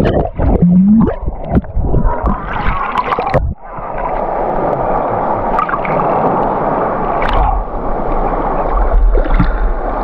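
Action camera underwater in the sea: muffled gurgling and bubbling with irregular knocks. About three and a half seconds in, it breaks the surface and a steady rush of sea water and wind takes over, with splashing near the end.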